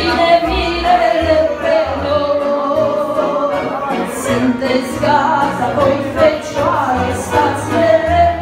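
A woman sings a Romanian hymn through a microphone, her voice carrying a slow, held melody over instrumental backing with low bass notes.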